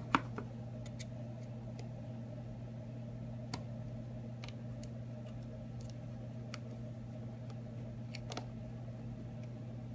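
Small clicks and taps of a phone and hand tools being handled on a work surface: one sharp click at the start and a few lighter ones spread through, over a steady low electrical hum.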